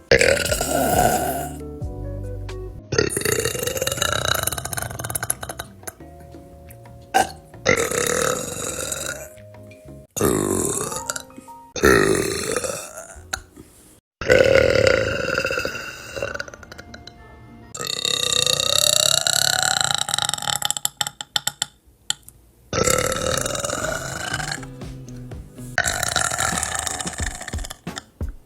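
Young women burping loudly, one long, drawn-out burp after another, about eight or nine in all, each cut off abruptly as the next begins.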